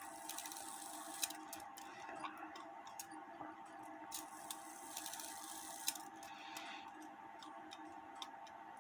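Faint, unevenly spaced ticks and clicks from an 1880 Albert Flieg cuckoo clock movement being tried out after an adjustment to its trip arm, over a faint steady hum; the cuckoo does not sound.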